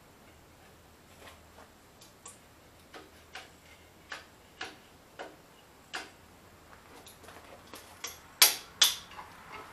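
Hammer striking steel at the backhoe's bucket pin: a run of light metallic taps about every half second, then two hard ringing blows near the end, driving a loose pin bushing out.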